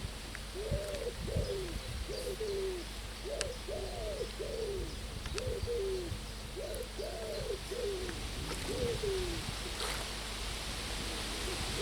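Pigeon cooing: a run of repeated low, rising-and-falling coos in short phrases, stopping a couple of seconds before the end.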